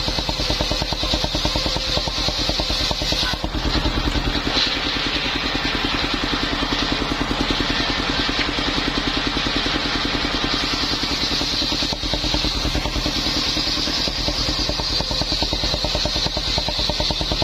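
Engine powering a portable circular sawmill, running steadily with a fast, even beat. A high hiss above it fades for several seconds and then comes back.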